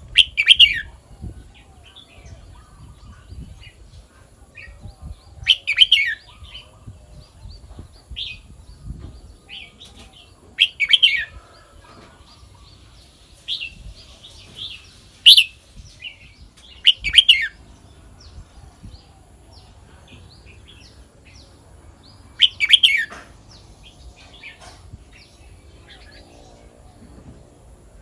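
Red-whiskered bulbul singing: about six short, loud whistled phrases a few seconds apart, with soft chips in between.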